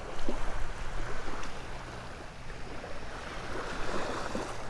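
Small waves breaking gently and washing up on a sandy shore, with wind rumbling on the microphone.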